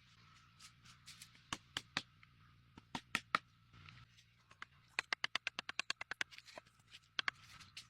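Scattered sharp clicks and knocks, with a quick run of about ten clicks a second lasting just over a second a little past the middle.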